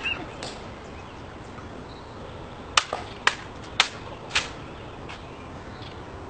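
Rifle being handled in an inspection drill: four sharp clacks about half a second apart a little before the middle, with a fainter one after.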